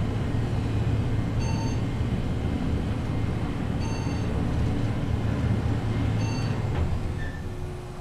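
Montgomery elevator car riding up, with a steady low hum of travel. A short electronic floor-passing beep sounds three times, about every two and a half seconds. Near the end the hum falls away as the car slows to stop.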